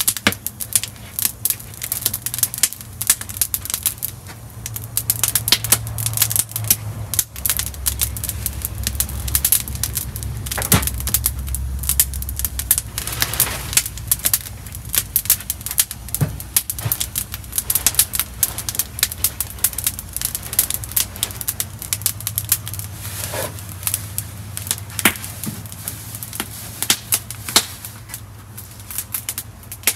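Wood fire crackling, with rapid irregular pops and snaps. A low rumble rises and falls underneath.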